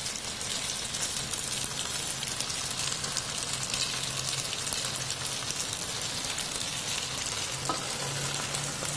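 Steady sizzling and crackling from a hot pot of cooked spaghetti, the little water poured in under the pasta cooking off at the bottom, while meat sauce is spooned on with wooden spoons. There is a brief knock near the end.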